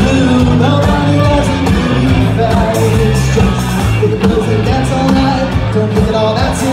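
Live rock band playing loudly: electric guitars, bass and drums, with a singer over the top.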